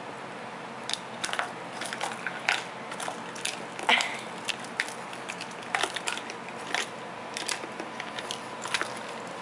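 Siamese cat biting and pawing a hollow plastic ball toy: irregular sharp clicks and crunchy taps of teeth and claws on plastic, a few each second, starting about a second in.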